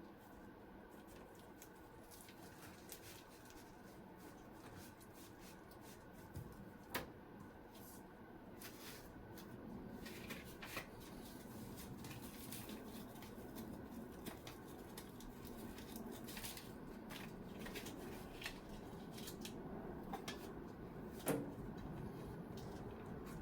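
Quiet kitchen food-prep handling sounds: scattered light clicks and taps of utensils and ingredients, with two sharper knocks, one about a third of the way in and one near the end, over a steady low background hum.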